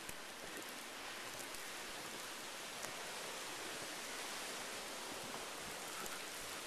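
Steady hiss of heavy snow coming down, with a few faint ticks.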